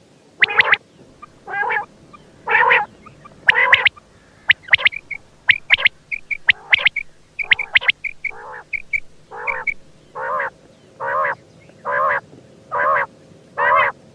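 Quail calling repeatedly: short, sharp high notes mixed with longer, harsher calls. In the second half the longer calls come at a steady pace of about one a second.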